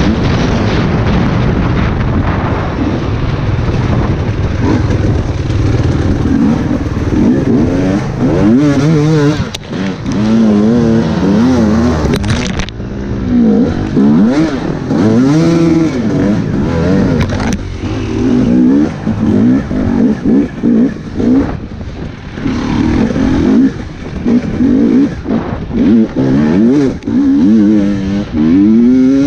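Off-road dirt bike engine, heard from the rider's own bike. It runs steadily at first, then from about eight seconds in revs up and down repeatedly in short throttle bursts as the bike works through a muddy climb.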